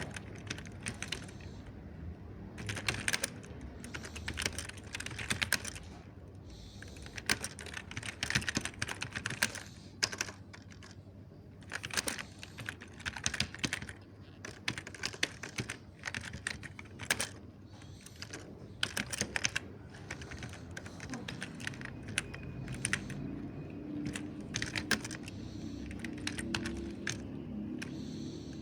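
Mechanical keyboard typing: soft key clicks in quick, irregular bursts separated by short pauses.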